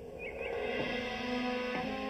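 Background music from the TV score: soft, held notes, with a change of chord about three-quarters of the way through.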